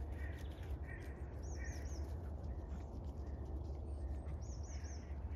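Birds calling: a high three-note chirp twice, and several shorter, lower calls between them, over a steady low rumble.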